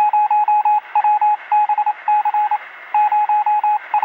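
Rapid short electronic beeps at one steady pitch, in irregular runs of about three to six, over a steady hiss.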